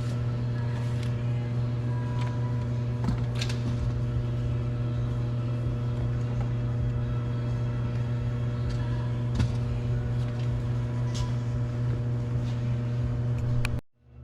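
Steady low hum with a few faint clicks and knocks of handling over it. The hum drops out abruptly near the end and comes back quieter.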